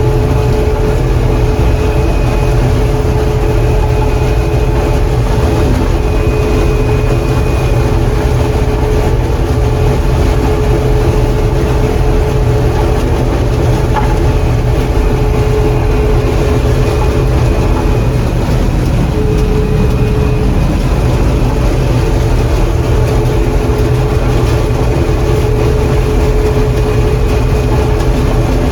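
John Deere 4400 combine running steadily: a constant machine drone with a steady high whine over it.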